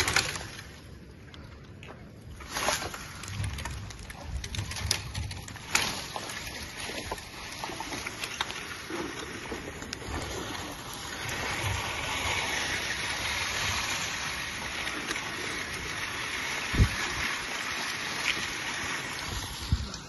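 Dry branches being handled while firewood is gathered, giving a few knocks and cracks. From the middle on a steady rushing noise takes over, and there is one sharp thump near the end.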